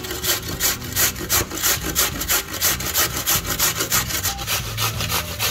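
Raw peeled potato grated by hand on a stainless steel box grater, a quick, even run of rasping strokes, about four or five a second.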